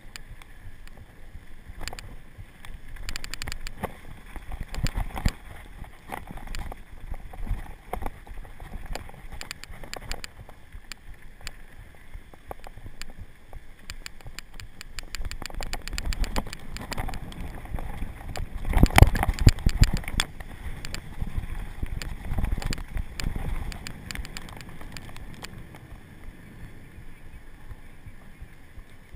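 Downhill mountain bike rolling fast over a dirt trail: tyre rumble with a steady stream of quick rattles and knocks from the bike, heaviest about two-thirds of the way through, easing as it reaches smooth pavement near the end.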